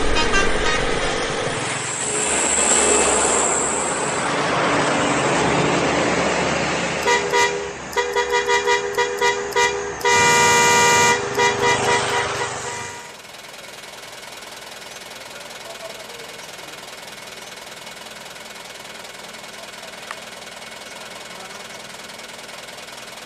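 Multi-tone truck horns sounding in a quick run of short toots, then one long blast. After that the level drops to a quieter, steady engine hum.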